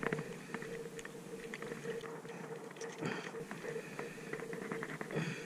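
Small scattered clicks and taps of a freshly caught sea bream being handled and unhooked by hand, over a faint steady hum.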